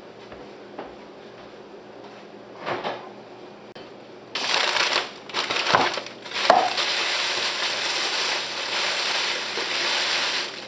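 A thin plastic grocery bag crinkling and rustling loudly as it is handled, starting about four seconds in, with a few knocks mixed in.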